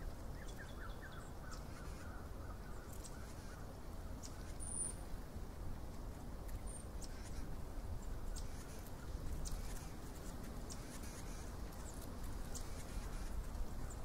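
Faint outdoor ambience: a steady low rumble, with a distant bird giving a quick run of short calls about half a second in and scattered faint high ticks.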